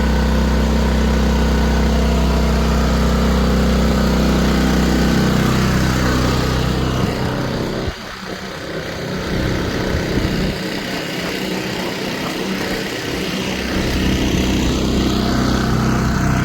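WEN 4500-watt inverter generator engine running steadily. Partway through its sound changes: about eight seconds in, the low hum drops away and the level dips, and the fuller running sound returns near the end.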